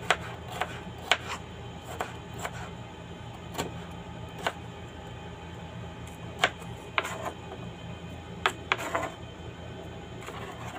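Kitchen knife chopping a tomato on a plastic cutting board: irregular sharp knocks of the blade striking the board, over a steady low hum.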